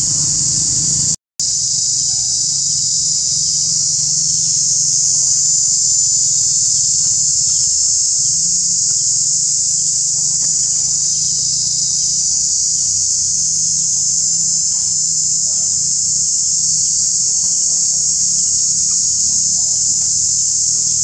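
Loud, steady, high-pitched insect chorus from the trees, cut off for a moment about a second in.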